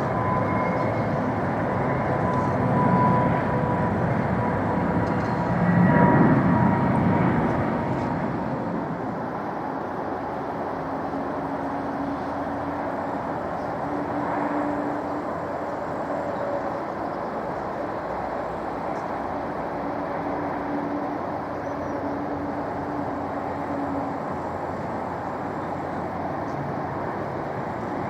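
Jet airliner engines running, a steady rushing noise with a faint thin whine, swelling to its loudest about six seconds in and then settling to an even level.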